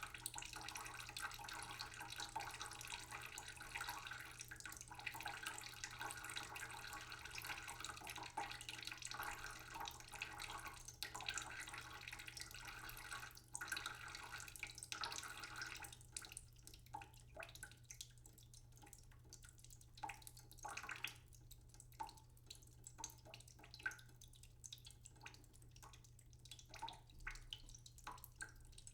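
Water running from a kitchen tap for about the first half, then it stops and only scattered drips and light knocks remain.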